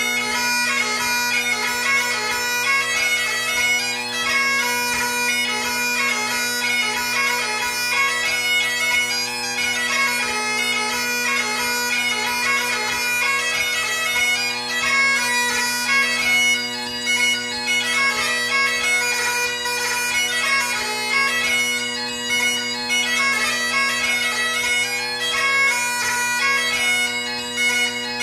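Great Highland bagpipe played solo: a steady drone hum under a chanter melody that moves quickly from note to note without a break.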